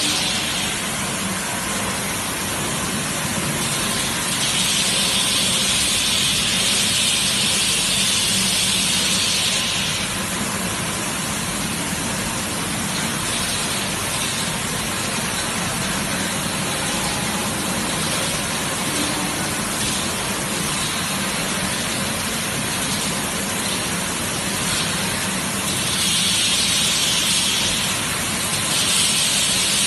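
Bottled-water washing, filling and capping line running: a steady mechanical hum with hiss. A louder hiss swells for several seconds about four seconds in and again near the end.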